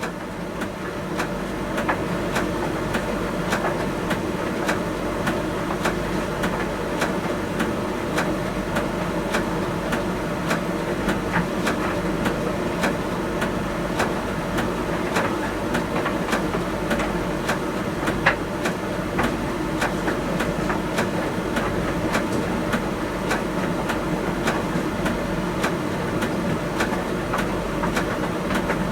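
Miele T1 Ecospeed heat-pump tumble dryer running: a steady hum with frequent irregular light clicks and taps on top.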